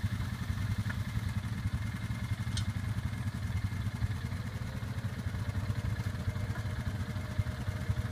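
An ATV engine idling steadily with a low, even putter.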